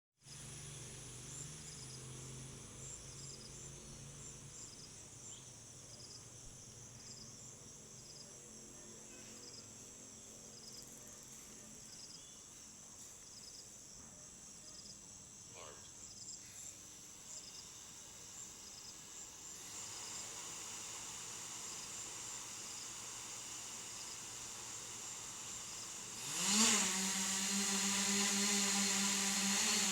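Crickets chirping in a steady, regular pattern. Near the end a home-built drone's electric motors spin up with a quick rising whine and settle into a steady whir.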